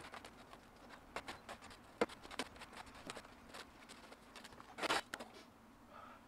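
Faint, quick, irregular scrapes and taps of a shovel digging into loose soil and tossing it into a wheelbarrow, with one longer scrape just before five seconds in.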